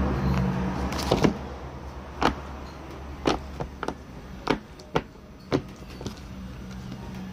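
Silicone pop-it fidget toy being pressed, its bubbles popping one at a time: about ten short sharp pops at an uneven pace.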